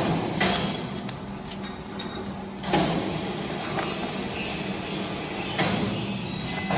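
Hydraulic baling press running: a steady hum from its pump motor, with three loud clunks a few seconds apart, one at the start, one near the middle and one near the end.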